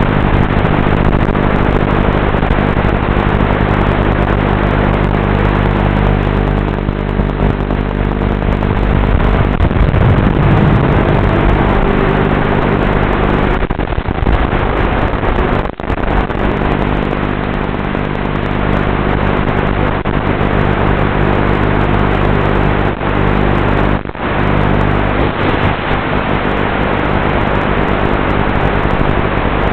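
Walkera F210 racing quadcopter's brushless motors and propellers in flight: a steady hum of several even tones under a loud hiss, the hum shifting with throttle about a third of the way in. The sound drops out for an instant a couple of times.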